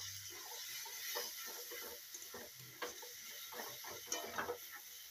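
A wooden spatula stirring and scraping prawns and spiced masala around a metal karahi, irregular scrapes and light taps over a faint sizzle, as the masala is fried down.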